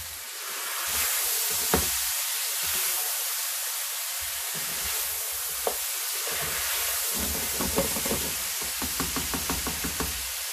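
Lamb shanks sizzling in hot oil in a non-stick pan as they are turned, with a few sharp knocks and, from about seven seconds in, a quick run of light clatters of the spatula against the pan.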